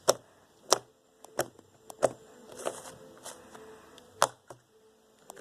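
Slime worked by hand to make its clicks: a string of sharp, irregular popping clicks, roughly one every half second to second, with soft squishing between them.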